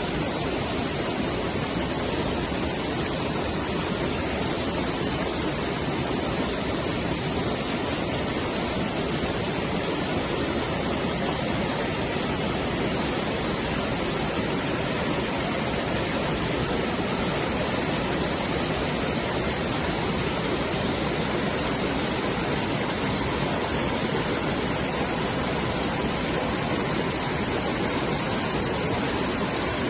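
Waterfall running steadily: an even, unbroken rush of falling water that does not change.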